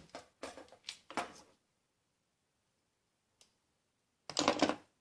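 Short clicks and rattles of metal hand tools being handled at a brake flaring tool: a quick run of them in the first second and a half, then a louder rattling scrape of about half a second near the end.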